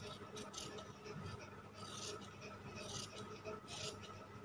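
Fabric scissors cutting through cloth in a run of short, irregular snipping strokes.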